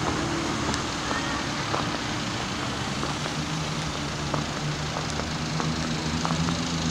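Road traffic: cars driving past, a steady wash of engine and tyre noise with a low engine hum underneath.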